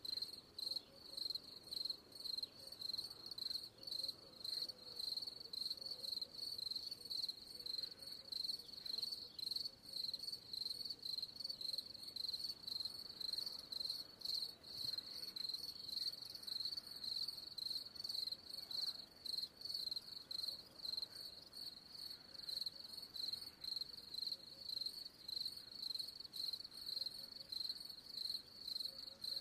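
Cricket chirping in a steady, even rhythm of high-pitched pulses.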